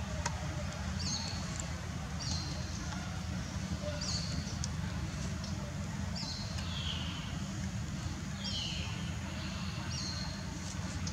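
A bird chirping repeatedly, short high calls about every second or two, most falling slightly in pitch, over a steady low rumble.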